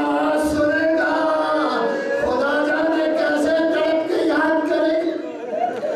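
A man's voice chanting the Islamic call to prayer (adhan) in long, drawn-out melodic phrases, with slow bends in pitch.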